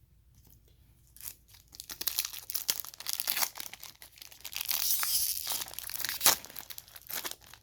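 A trading card pack's plastic wrapper being torn open and crinkled by hand. The crackling starts about a second in, runs almost to the end and peaks sharply once near the end.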